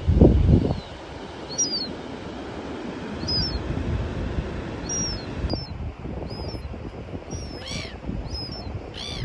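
Birds calling over wind buffeting the microphone: short high chirps about every second and a half, and two louder, fuller calls near the end. A heavy gust hits the microphone right at the start.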